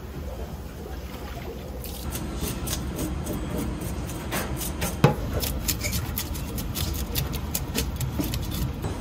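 Raw seafood being scrubbed by hand in a stainless steel sink: quick repeated wet rubbing strokes start about two seconds in, over a steady low hum. One sharp knock comes near the middle.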